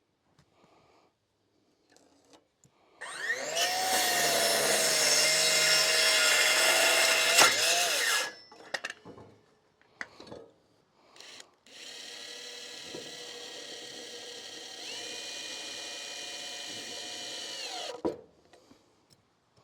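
Power saw cutting a board to length: the motor spins up, runs loudly through the cut for about five seconds and winds down. A few seconds later a quieter power tool, most like a drill, runs steadily for about six seconds, its pitch stepping up partway before it stops.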